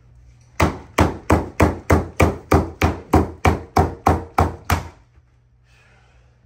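Corded electric staple gun firing staples through stair carpet, about fourteen sharp shots in quick succession, roughly three a second, fastening the carpet tucked up under the stair nosing.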